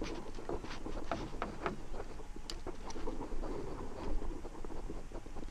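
Irregular light clicks and taps of a hooked fish being unhooked with pliers at the side of a metal rowboat: pliers and the lure's hooks clinking while the fish struggles.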